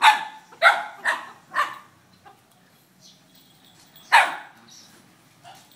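Kintamani dog barking: four quick barks in the first two seconds, then a single bark about four seconds in.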